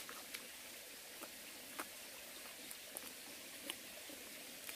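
Faint chewing of a soft banana: a handful of small, irregular wet mouth clicks over a quiet background hiss.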